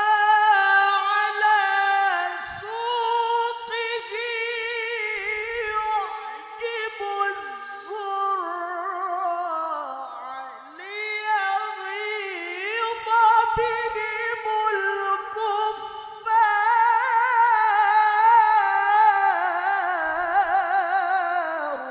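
A man's high voice reciting the Quran in the melodic mujawwad style: long held notes, melismatic runs and quick trembling ornaments. It swells to a louder passage about two-thirds of the way through.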